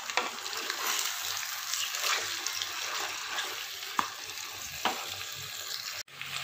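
Raw chicken pieces sizzling in hot oil as they are stirred in the pan, with a few sharp knocks of the spatula against the pan.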